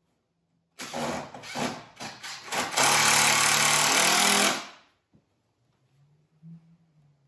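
Cordless impact driver driving a screw into the wooden window frame: a few short stuttering bursts, then one continuous run of about two seconds that stops about five seconds in.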